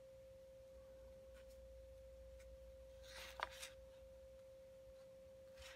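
Near silence with a faint, steady high tone throughout. About three seconds in comes one short, soft stroke of a flat watercolour brush on paper.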